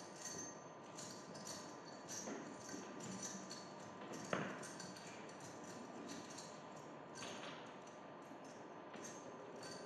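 Faint, scattered jingling and light clicking, with one sharper click about four seconds in.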